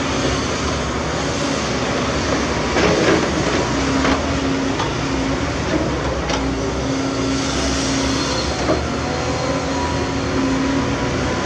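Heavy diesel earthmoving machinery running steadily, with a held droning tone and a few short clanks and knocks along the way.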